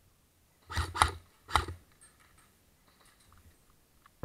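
Airsoft gunfire: three sharp cracks in quick succession within about a second, starting nearly a second in, then only faint ticking.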